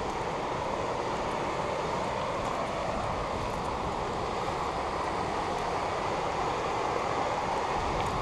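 Steady rushing of a whitewater creek over rocks below, an even roar with no breaks.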